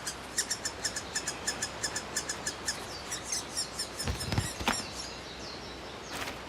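Okinawa woodpecker chicks begging from the nest: a rapid run of short, high chirping calls, about four or five a second, that stops about three and a half seconds in. A few louder calls and a low thump follow about four seconds in.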